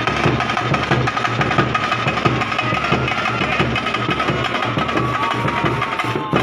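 Baraat brass band playing: drums beating a busy rhythm under a held, high brass note.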